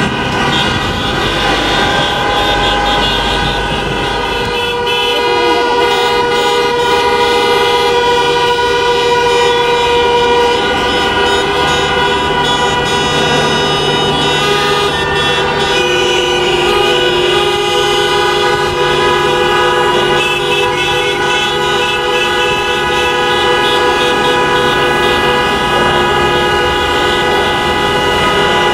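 Many car horns sounding at once, held and overlapping in a continuous chorus of steady tones at different pitches, with engine noise underneath: drivers honking in protest as they drive through a motorway toll plaza.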